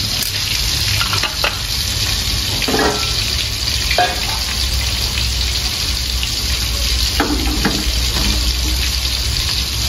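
Marinated chicken pieces deep-frying in very hot oil in a wok, a steady sizzle that goes on without a break.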